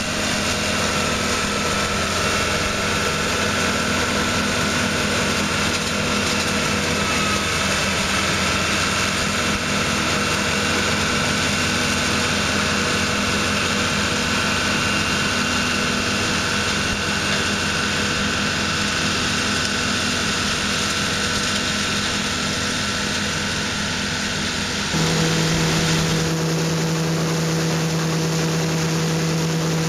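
Self-propelled grape harvester's diesel engine and picking machinery running steadily as it works along a vine row. About 25 seconds in the sound changes abruptly to a different, steadier engine tone heard close up from the driver's position.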